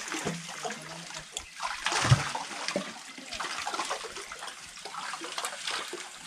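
Water splashing and sloshing in irregular bursts, with one louder thump about two seconds in.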